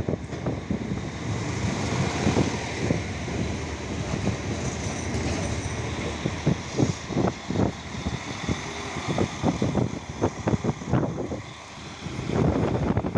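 PESA Link SA139 diesel multiple unit pulling slowly into the platform: engine running and wheels rolling on the rails, with many irregular knocks through the middle of the passage.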